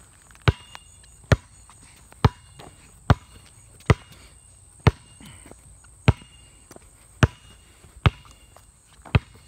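A basketball dribbled on an asphalt road: about ten sharp bounces, each with a short ring, roughly one a second.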